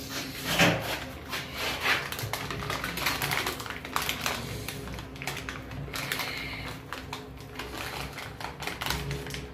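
European hornet on a windowpane, its wings and body rattling against the glass and plastic frame in fast, irregular clicks, over a faint steady low hum.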